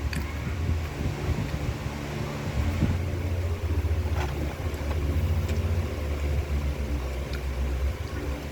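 A low steady hum that swells and dips, with a few faint clicks over it.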